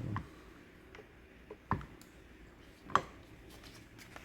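Quiet handling noises: a soft thump at the start, then two sharp clicks over a second apart, as the stainless pistol and sandpaper are handled on the work surface.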